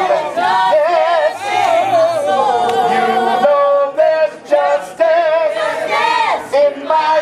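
A choir singing: several voices hold long, wavering notes with vibrato, phrase after phrase, with brief breaks between them.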